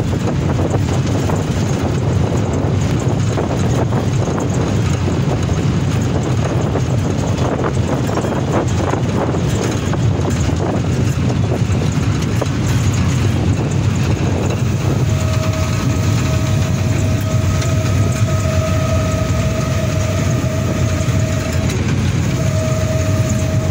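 Diesel locomotive running under way, heard from the cab: a steady low engine drone mixed with rail and wind noise. About two-thirds of the way in, a steady high whine joins and breaks off briefly twice near the end.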